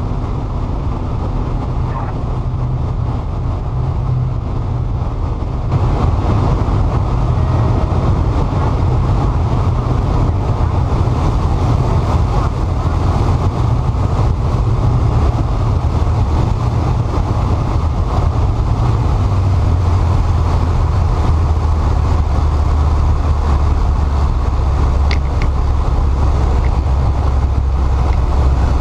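Steady cockpit noise of an airliner on landing: a low engine drone under rushing air. It grows louder and fuller about six seconds in, and the low hum drops slightly in pitch about two-thirds of the way through.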